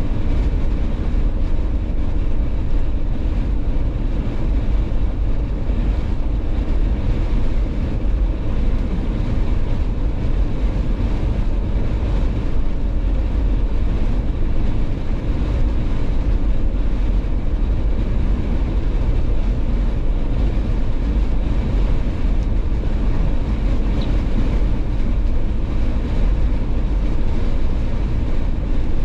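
Steady low drone of a Jeep driving on the highway: engine, tyre and wind noise blended together, with no change throughout.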